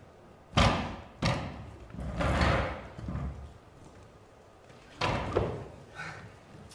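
Several loud thumps and knocks on a stage floor from performers moving and chairs being set down. The loudest hit comes just over half a second in, another follows about half a second later, then a longer scuffle around two seconds in, and a few more knocks around five to six seconds.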